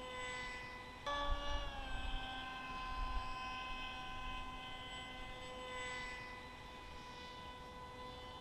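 Small electric RC model's brushless motor and propeller whining from a distance, a steady pitched drone. About a second in the pitch jumps up as the throttle is opened, eases back down over the next second, then holds steady and grows a little fainter, with low wind rumble on the microphone.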